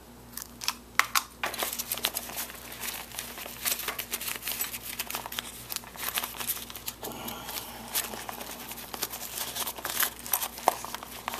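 Hands rummaging through small gear items in a carry pack: continuous crinkling and rustling with many light clicks and knocks.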